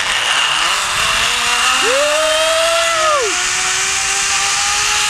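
Zipline trolley pulleys running fast along a steel cable: a loud rushing hiss with a thin whine that slowly rises in pitch. About two seconds in, a separate higher note swells up, holds and drops away after about a second and a half.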